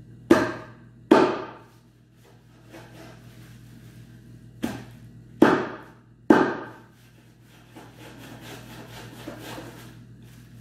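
Large kitchen knife chopping into a goat carcass: five heavy chops in two groups, then a run of lighter, quicker strokes near the end. The cutting is hard going, because the knife is not big or sharp enough for the job.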